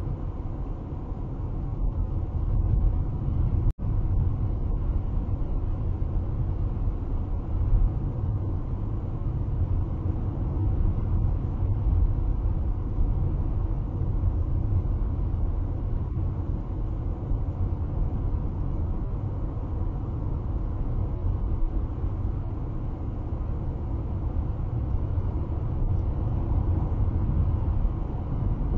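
Steady low rumble of tyre and wind noise inside a car cruising at highway speed, about 70 mph. The sound cuts out for an instant about four seconds in.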